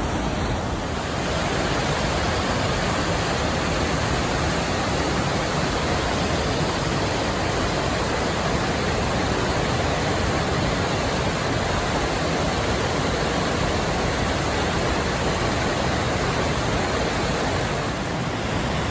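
Waterfall and river water rushing steadily, in full flow with snowmelt.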